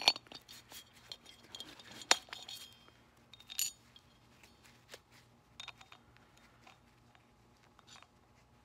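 Metal clinking and tapping as a lawn tractor's mower-deck blade spindle and its pressed-steel pulley are handled and worked, some knocks ringing briefly. The sharpest knocks come right at the start and about two seconds in, then the ticks thin out.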